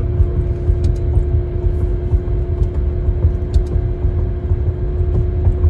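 Cabin noise of a McLaren on the move: a steady low rumble of road and engine noise with a constant drone over it.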